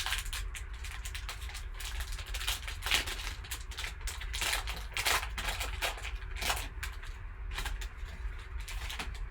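Packaging of a sealed sports card box being torn open and handled: rapid, irregular crinkling and rustling, over a low steady hum.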